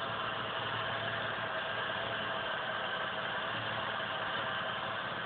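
Turbocharged Jeep 4.0-litre straight-six engine idling steadily.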